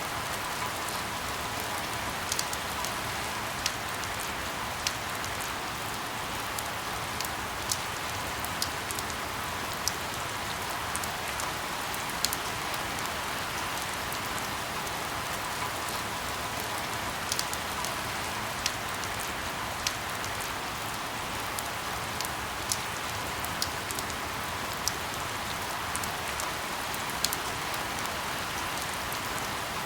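Steady rain falling, an even hiss with scattered sharp ticks about once a second.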